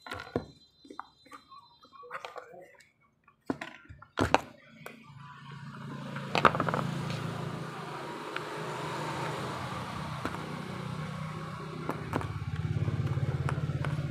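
A few light clicks and taps of small plastic switch parts being handled, then from about five seconds in a motor vehicle engine running steadily, growing louder and then holding, with one sharp click over it.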